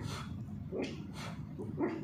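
Indian spitz puppy giving a few quiet, short yips while playing.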